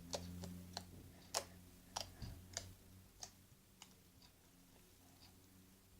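Slime worked in the hands, giving faint, irregular little clicks and pops that come less often and grow quieter as it goes on.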